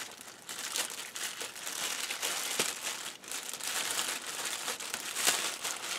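Thin clear plastic bag crinkling and rustling continuously in the hands as the tape sealing it is worked off.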